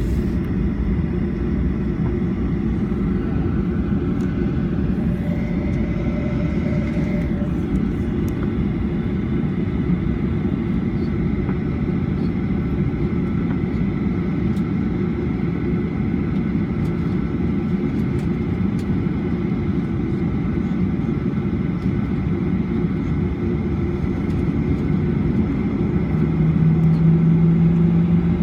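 Cabin noise of a Boeing 737-800 with its CFM56-7B engines running, a steady low rumble with faint steady whines above it. Near the end a low hum comes in and the sound grows a little louder.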